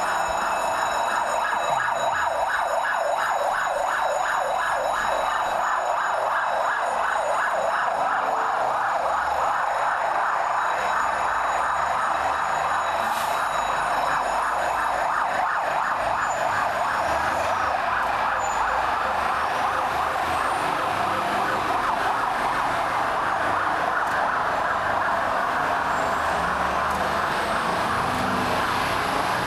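Emergency vehicle siren sounding continuously, pulsing quickly at first and steadier later on.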